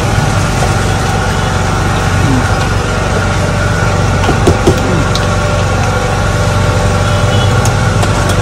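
An engine running steadily at a constant speed, an even hum, with a couple of brief knocks about halfway through.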